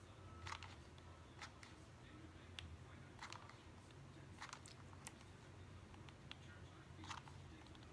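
Faint, scattered clicks and light crackles, about seven in all, as a hot glue gun is worked and a scrap of book page is handled, over a low steady room hum.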